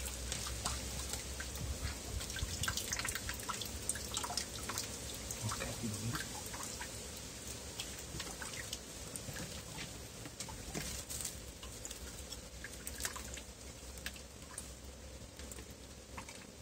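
Water dripping and trickling in many small, quick drops and light splashes. The drops are dense at first and thin out after about eight seconds.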